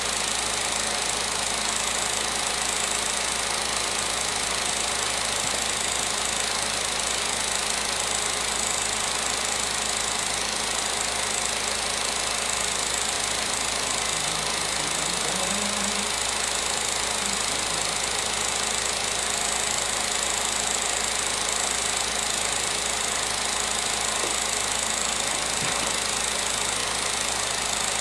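16mm film projector running: a steady mechanical whirr with hiss, unchanging throughout.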